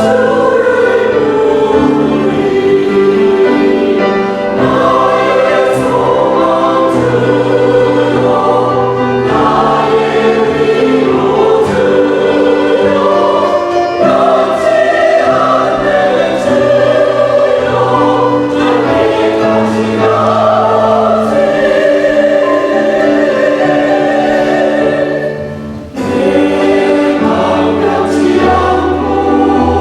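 Church choir singing a sacred anthem, with sustained sung notes and a brief pause between phrases near the end.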